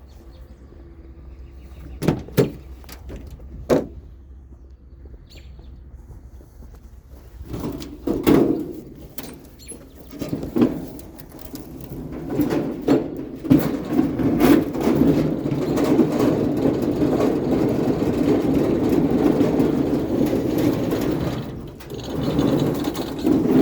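Scattered knocks and clunks as a salvaged scrap item is handled, then about ten seconds of steady rumbling and rattling, fitting the item being rolled along on its wheels.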